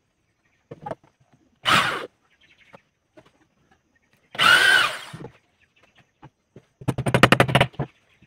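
Corded electric drill run in three short bursts, boring holes into a wooden chair rail; the last burst is a rapid stutter of pulses.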